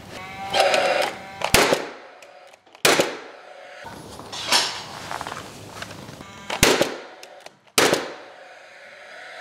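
Paslode cordless framing nailer firing nails into framing lumber: four sharp bangs, two close together about a second and a half in and two more near the end, fastening the window sill onto the cripple studs.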